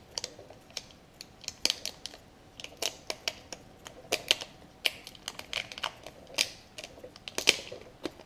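Irregular small crackles and clicks as an adhesive sticker is peeled back off the LCD connector at the bottom of a laptop screen.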